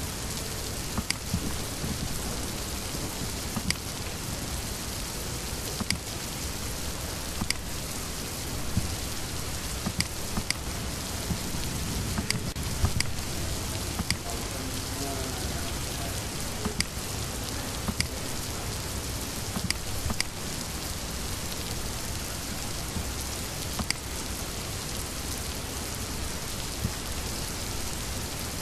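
Steady hiss of background noise with sharp computer-mouse clicks every second or two.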